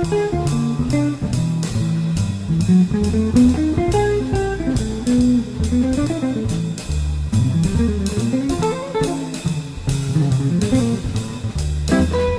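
Live small-group jazz: an electric guitar plays a single-note improvised line over a walking upright bass and drums keeping time on the cymbals.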